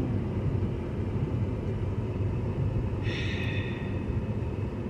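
Steady low rumble of a car's engine and road noise heard inside the cabin while driving, with a brief hiss about three seconds in.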